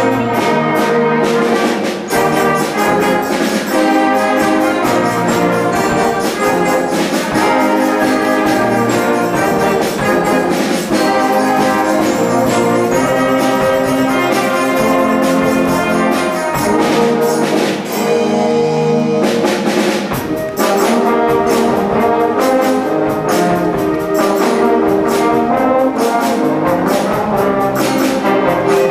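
School concert band playing, brass to the fore, with regular drum and percussion strikes; the texture briefly thins about nineteen seconds in before the full band returns.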